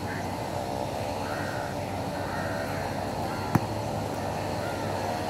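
A basketball bounces once, sharply, on the hard outdoor court about three and a half seconds in. Behind it are repeated short bird calls and a steady background hum.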